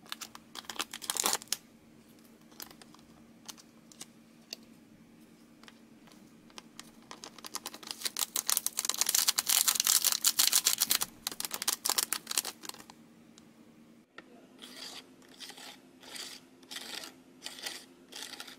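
A plastic candy-powder sachet crinkling in the fingers, then being torn open with a loud crackling tear lasting a few seconds. After a cut, a small plastic spoon stirs and scrapes in a plastic tray of mixing candy slime, in regular strokes about twice a second.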